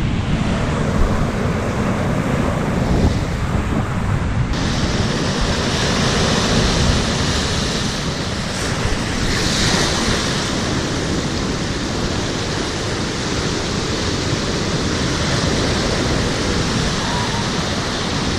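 Choppy lake waves breaking and washing up a sandy beach, surging over a fallen tree trunk, a surge strongest near ten seconds in. Wind buffets the microphone throughout.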